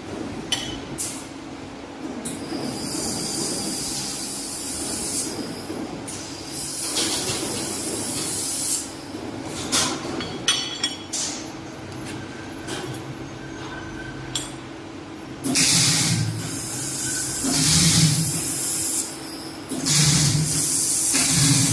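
1.5 kW handheld fiber laser welding machine at work: repeated hissing bursts a few seconds long, with a few sharp clicks, over a steady hum. The bursts get louder in the last third.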